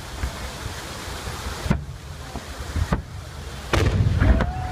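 Fireworks salute shells going off: two single bangs about a second apart, then a quick, louder cluster of booms near the end, over a steady rush of water from the fountains.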